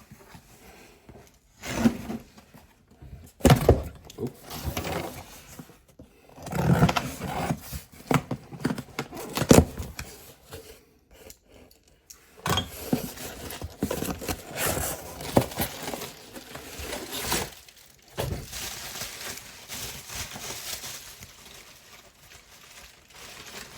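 A cardboard shipping box being opened and unpacked by hand: irregular scraping and rustling of cardboard and packing material, with sharp knocks as the contents are handled.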